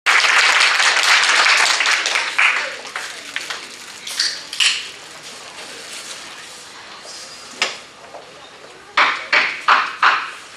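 Audience applause dying away over the first two or three seconds. A few scattered taps and clicks follow, then four sharp knocks in quick succession, about a third of a second apart, near the end.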